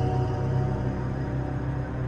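Dark, ominous horror-film background music with a heavy, steady low drone, fading slightly.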